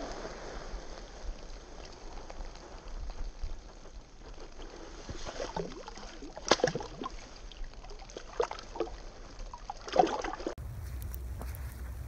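Water sloshing and lightly splashing in an ice-fishing hole as a hand works in the slushy water, with a handful of short splashes in the second half. Near the end it gives way to a steady wind rumble on the microphone.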